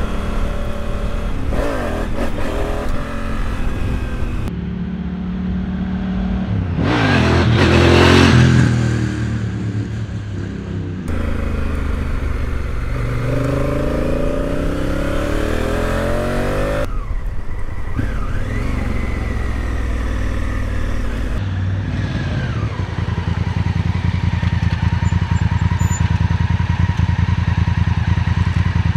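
Honda Africa Twin CRF1000L parallel-twin engine riding along in several cut-together clips. The engine note rises as it accelerates, and there is a loud swell of noise about eight seconds in. In the last several seconds the engine idles with an even, rapid beat.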